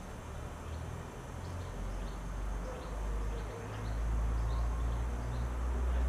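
Outdoor background: a low steady rumble that grows louder in the second half, with faint short high chirps repeating about every half second.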